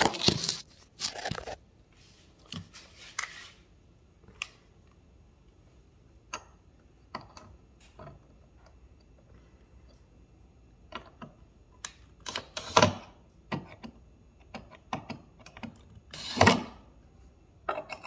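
Scattered clicks and knocks of tools and parts being handled, with two short bursts from a cordless drill-driver a few seconds apart near the end as it runs down the screws of the clamp holding the knife blade.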